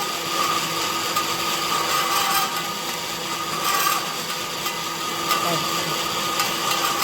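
A plastic extruder's single-phase AC induction motor driving the screw through a chain and worm-reduction gearbox, running steadily: a constant whine over a rough grinding noise.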